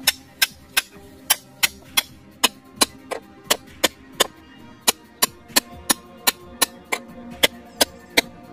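A rapid, even series of sharp knocks, about three a second, like a tool striking wood.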